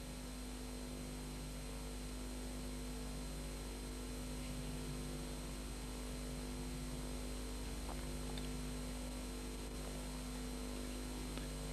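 Steady electrical mains hum over an even hiss, with nothing else heard: the background noise of the sound track.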